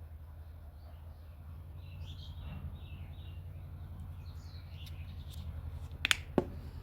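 Two sharp clicks close together near the end, over a steady low hum, with faint high chirping in the background.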